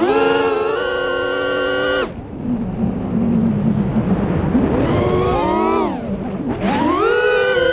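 FPV multirotor drone's electric motors whining, pitch rising and falling with the throttle. A held high whine drops off sharply about two seconds in to a lower buzz, then climbs again twice near the end.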